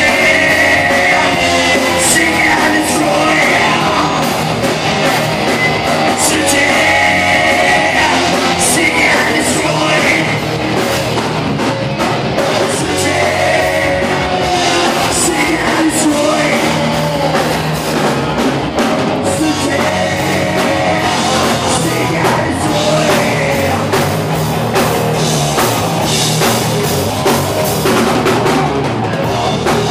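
Live rock band playing loud: electric guitars, bass guitar and a drum kit, with a singer's vocal line over them, heaviest in the first half.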